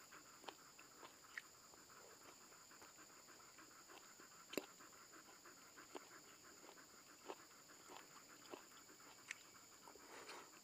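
A dog panting softly and quickly, close by. A few sharp clicks come through, the loudest about four and a half seconds in.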